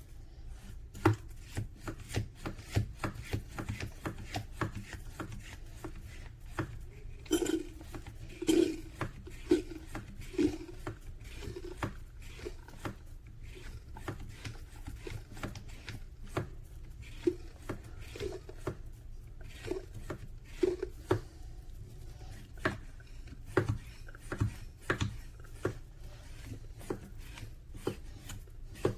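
Irregular clatter of small hard objects being handled: many light clicks and taps, with a run of heavier knocks about once a second around a third of the way in.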